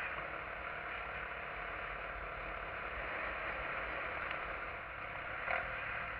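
SYM XS125-K 125 cc single-cylinder motorcycle being ridden slowly, its engine running under a steady rush of wind on the camera's built-in microphone. A brief louder sound comes near the end.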